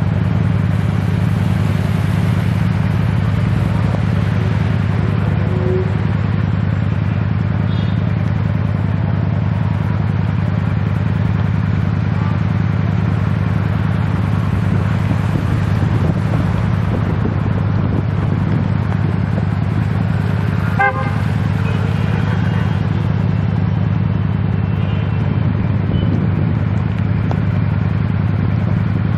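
City traffic on rain-wet roads: cars passing with tyre noise over a steady low rumble, and car horns tooting, one short toot about two-thirds of the way through.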